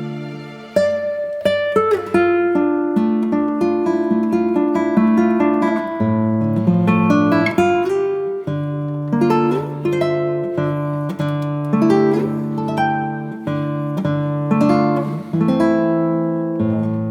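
Background music: acoustic guitar playing a plucked melody over bass notes.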